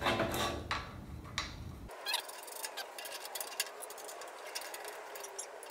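Light clicks and ticks of a plastic lock knob being fitted and threaded onto a bandsaw's upper blade guide post bracket, with hands handling the parts. A low rumble underneath cuts off suddenly about two seconds in.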